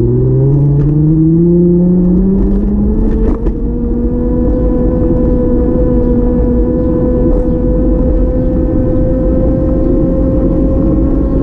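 A motor vehicle's engine accelerating, its pitch rising steadily; about three seconds in there is a short dip, like a gear change, after which it runs on with a steadier tone that keeps climbing slowly.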